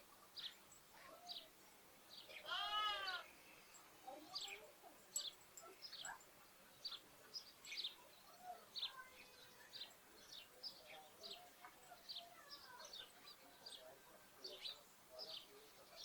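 A lamb bleats once, loudly, about two and a half seconds in, over sparrows chirping in short, repeated chirps throughout.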